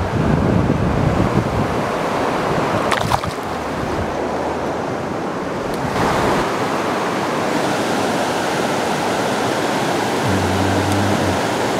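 Steady rush of water running over river rapids, with a brief cluster of clicks about three seconds in.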